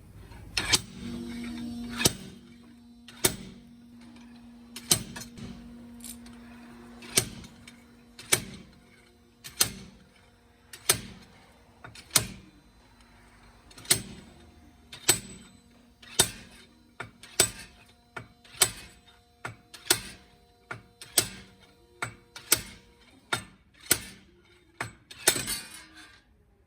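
Sharp metallic knocks, evenly spaced a little over a second apart, about twenty in a row, each ringing briefly, over a steady low hum.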